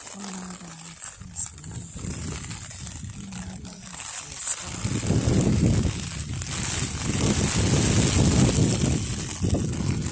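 Faint low voices of people at first, then from about halfway a loud, irregular rumbling on the microphone.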